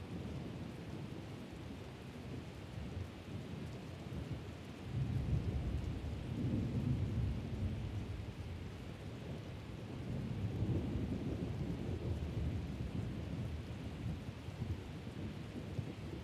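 Steady rain with thunder rumbling low, swelling about five seconds in and again around ten seconds.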